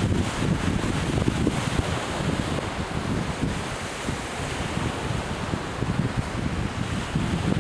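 Strong wind buffeting the microphone in irregular gusts, over the steady wash of surf breaking on a beach.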